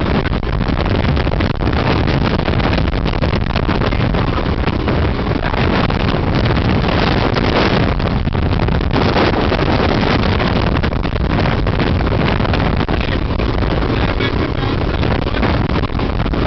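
Motorboats running at speed over open water: a steady engine drone mixed with rushing water and wind buffeting the microphone.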